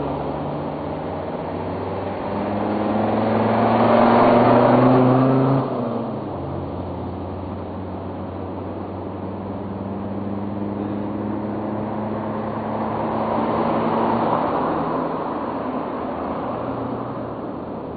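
Motor vehicle engine hum, swelling to a peak about four seconds in and dropping off abruptly, then swelling again past the middle and fading.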